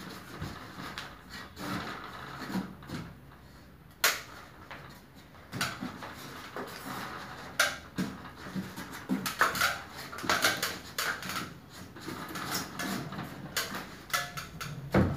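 Irregular clicks and knocks from an open Daikin ceiling-cassette air-conditioner indoor unit's casing as it is handled overhead, with a sharp knock about 4 seconds in and another near the end.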